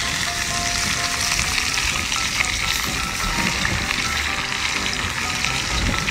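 Seafood frying in a wok: a steady sizzling hiss.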